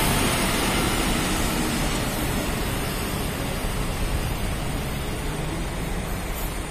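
Diesel coach bus engine running as the bus drives off across the lot, a steady rumble that slowly fades as it moves away.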